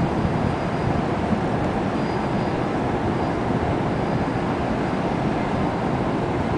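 Wind blowing across the camera microphone on an open deck: a steady, rough low rumble that flutters unevenly.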